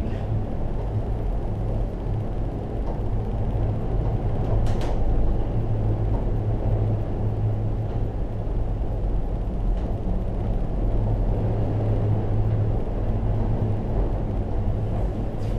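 Steady low hum and rumble inside a cable car cabin riding along its ropes, with one short click about five seconds in.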